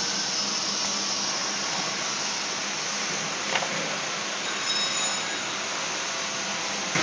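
Cup filling and sealing machine running: a steady mechanical noise with a low hum, broken by one sharp click about three and a half seconds in and another near the end.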